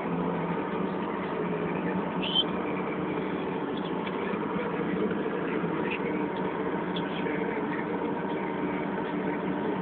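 Diesel engine of an Atlas excavator running steadily.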